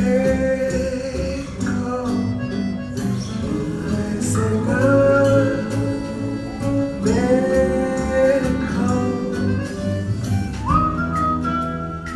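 A song with a singing voice and guitar, played back through speakers driven by an AIYIMA A07 MAX amplifier. A long note is held near the end.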